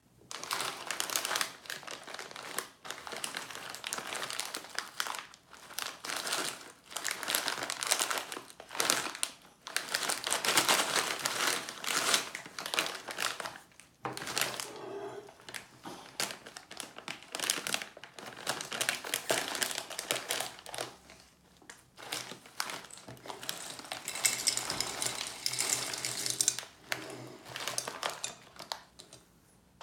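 Plastic snack bag of roasted in-shell pistachios crinkling and rustling in irregular bursts as it is handled and opened by gloved hands; near the end the nuts are tipped out of the bag onto a plate.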